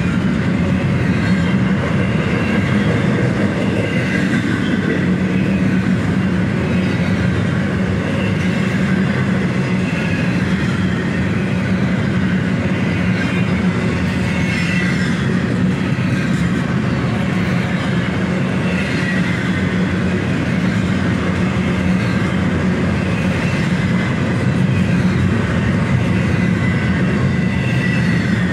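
Double-stack intermodal freight cars rolling past: a steady low rumble of steel wheels on the rails, with a high wheel squeal that comes and goes.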